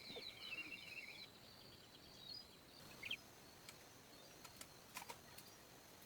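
Faint outdoor background: a steady high whine that stops about a second in, small bird-like chirps, then a few faint clicks.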